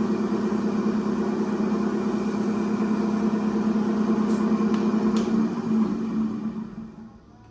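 Wood lathe motor running steadily with a low hum, dying away near the end.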